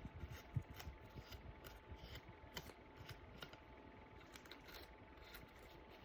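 Faint, irregular light clicks and taps of small craft pieces being pressed down and handled on a tabletop.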